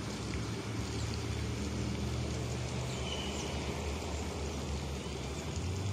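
Steady low mechanical hum over outdoor background noise, with a few faint, short high chirps.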